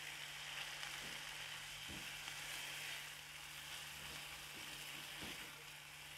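Shredded chicken frying in a pan with coconut milk, a faint steady sizzle with a few light knocks of the spatula as it is stirred; the coconut milk is cooking down until dry.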